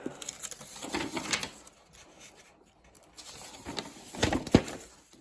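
Hands handling small kit parts and packaging: scattered clicks and short rustles, with a sharper click about four and a half seconds in.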